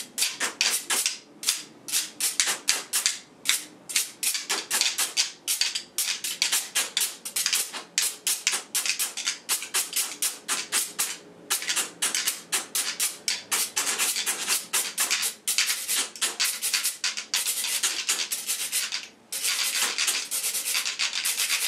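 Household objects played as scraping instruments in a quick rhythmic jam: a chopstick rasped along a spiral notebook's wire rings and a metal straw scraped across a metal cheese grater. The strokes come in rapid, bright, raspy runs with a brief pause near the end.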